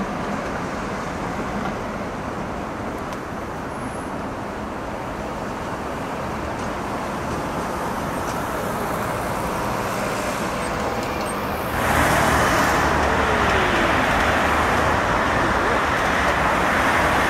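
City street traffic noise: cars and a trolleybus passing on the road. About 12 seconds in it jumps suddenly to louder, hissier traffic noise.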